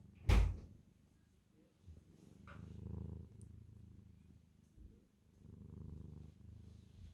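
A cat purring, the low rumble swelling and fading in slow waves about three seconds apart. A sharp thump just after the start is the loudest sound.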